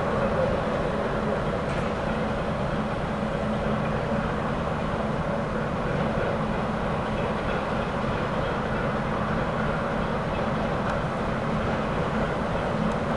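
Diesel engine of a DR1A diesel multiple unit running steadily as the train creeps slowly forward, a constant low drone with a steady hum.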